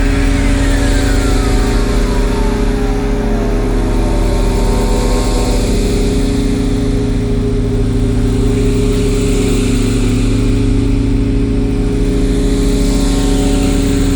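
Roland System-8 synthesizer playing a sustained analog-style drone: several held low tones stacked under a hiss of noise. Over the first few seconds a single sweeping tone glides steadily downward in pitch.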